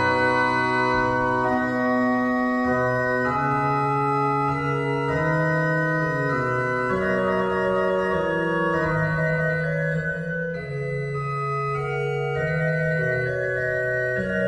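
Sampled Mascioni pipe organ playing a slow passage of held chords, several voices at once, with the notes changing about once a second.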